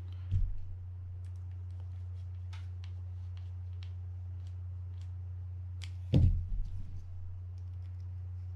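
Small scattered clicks of a mini screwdriver working a screw into a fishing-reel rotor, with a short knock about half a second in and a louder knock and rattle about six seconds in as tools and parts are handled on the bench. A steady low hum runs underneath.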